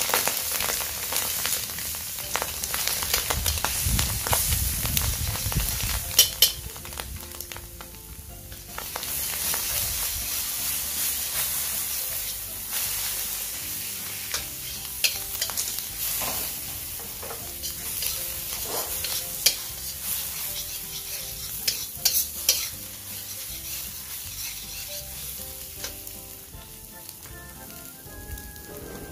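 Scrambled egg and blended spice paste sizzling in hot oil in a steel wok, stirred with a long metal spatula that scrapes and clinks against the pan now and then.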